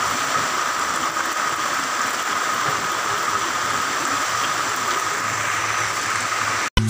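Steady hiss of typhoon rain falling on corrugated metal roofs, cutting off suddenly near the end.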